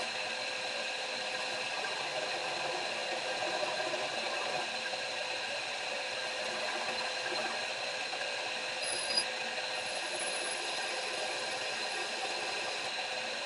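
Electric grinder running steadily as a forged steel punch is held against it to dress and shape its tip, a constant hum with a grinding hiss over it. A single short click about nine seconds in.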